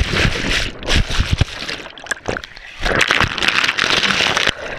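Ice water sloshing and splashing right against a GoPro's housing as its wearer plunges through an ice bath, with muffled knocks in the first second and a burst of louder splashing about three seconds in.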